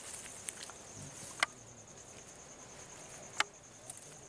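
Insects chirring in a steady, high, finely pulsed trill. Two sharp snaps cut through it, about a second and a half in and again two seconds later.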